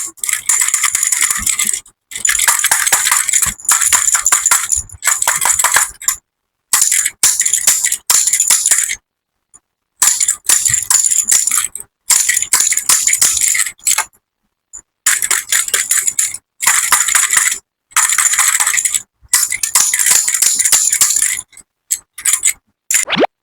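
Small hard candies such as M&M's pouring and clattering into a container, in bursts of one to two seconds separated by abrupt silences.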